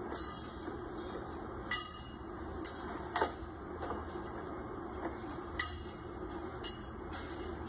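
Steady hum of warehouse machinery, with a few sharp clacks a second or two apart as items and crates are handled at a packing bench.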